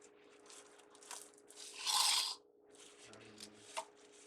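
Craft ribbon rustling and crinkling as it is handled and shaped into a bow, with one louder crinkle about two seconds in.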